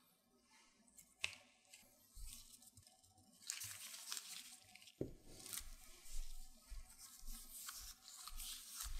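Kitchen scissors snip once about a second in. Then disposable-gloved hands rustle and squish as they roll soft glutinous rice dough into a ball.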